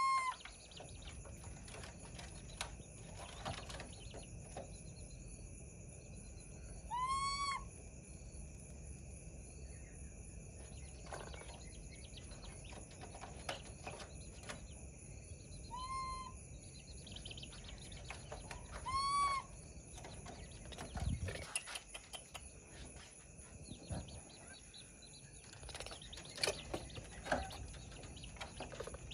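Baby monkey giving short, clear whistled calls, each rising and then falling in pitch, four times with long gaps between. A faint steady high whine and a few light knocks sit underneath.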